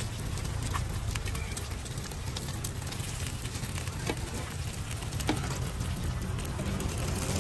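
Eggs frying in oil on a large flat steel griddle: steady sizzling with a few sharp pops or ticks scattered through, over a low steady rumble.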